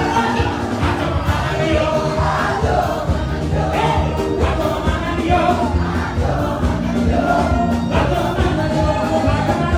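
Live band playing amplified dance music, with a male lead singer and other voices singing together over keyboard and drums.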